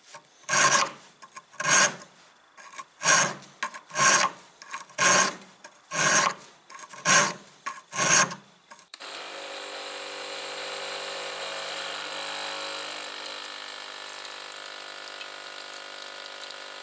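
Slow, even strokes of a hand file, about one a second, each a short rasp, for some eight seconds. Then the strokes stop and a steady hum with a few held tones takes over.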